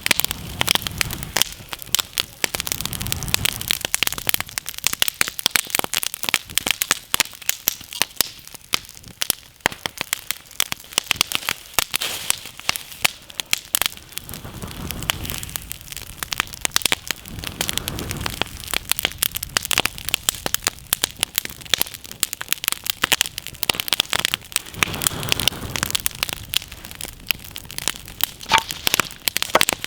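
Wood campfire crackling and popping steadily, a dense run of sharp snaps, with a few low rushing swells now and then.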